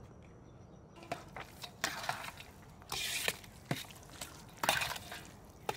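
Scattered clicks and short scraping, rustling noises of ingredients and utensils being handled while a tzatziki sauce is put together. It starts after about a second of quiet.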